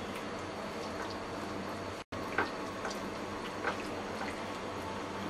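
Bare hands mashing soft fried brinjal (eggplant) flesh, giving a few faint wet squelches over a steady background hiss.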